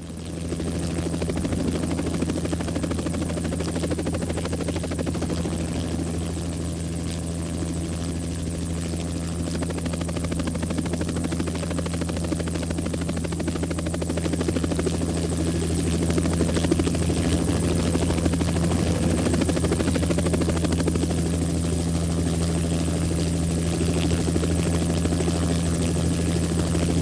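Helicopter running steadily, a constant low drone that swells in at the very start and then holds level.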